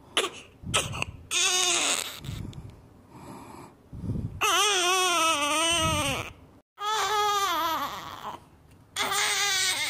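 Newborn baby crying in several cries, each one to two seconds long and wavering in pitch, with short breaks between them.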